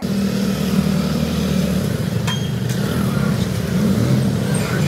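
A road vehicle running steadily, its engine rumble mixed with road and wind noise, with one short click a little over two seconds in.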